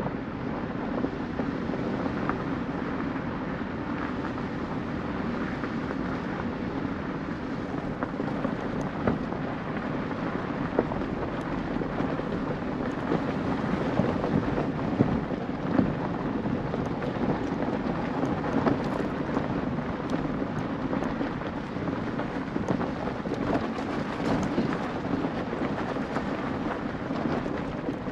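Steady low rumble of a vehicle rolling along a gravel dirt road, with small scattered crackles and pops from stones under the tyres.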